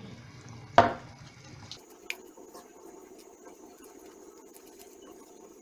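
Wooden spatula stirring and scraping a thick cheese sauce in a pan, with soft scratching and small clicks. One sharp knock about a second in is the loudest sound.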